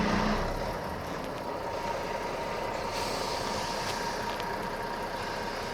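Large lorry's diesel engine running steadily, a low hum at first, over a steady rumble.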